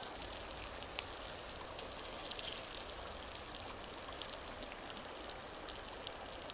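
Steady rush of a shallow river running over stones, with a few faint ticks.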